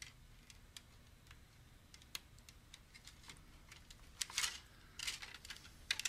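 Scattered small clicks and brief rustles of flat trailing cables being handled and pushed one at a time into their connectors on an HP Designjet 1050C plotter's carriage, with a louder rustle about four seconds in.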